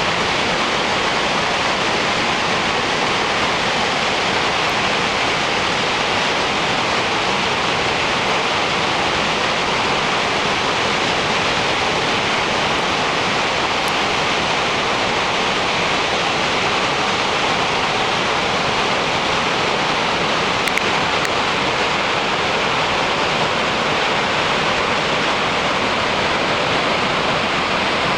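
Waterfall: a loud, steady, unbroken rush of falling water.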